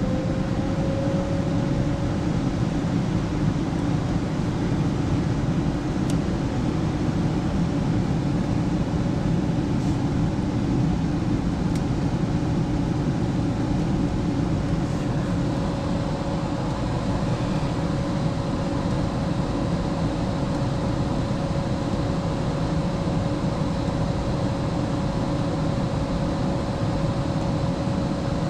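Furnace blower motor running steadily, a whir with a steady hum, just settling from spin-up near the start. It is purging leftover heat from the heat exchanger before the limit switch lets the heating cycle restart.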